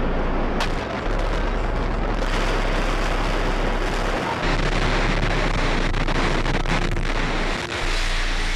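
Loud, continuous rumbling roar of a World Trade Center tower collapsing, as picked up by a news camera microphone. A few sharp cracks stand out in it, one about half a second in and several more around two thirds of the way through.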